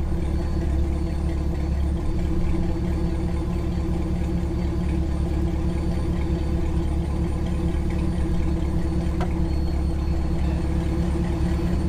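Squarebody Chevy pickup's Gen IV 6.0-litre LS V8 idling steadily with a low, even note and no revving.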